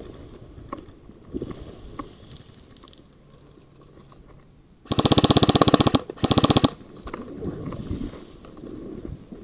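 Airsoft rifle firing on full auto: two rapid bursts of evenly spaced shots, the first about a second long, the second about half a second, with a short gap between them.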